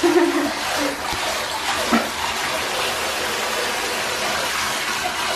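Shower head spraying a steady stream of water onto a wet puppy and into a plastic basin of water.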